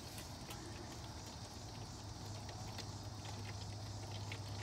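Thin stream of engine oil draining from an oil pan drain hole and pattering into a drain pan, with irregular light ticks of spatter. A steady low hum runs underneath and grows a little stronger about two seconds in.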